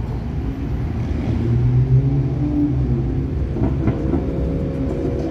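Cars and a pickup truck driving past, their engines giving a loud, low drone that swells about two seconds in.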